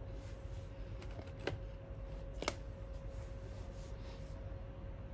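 Light clicking and tapping over a faint steady hum, with two sharp clicks about a second apart, the louder one about halfway through.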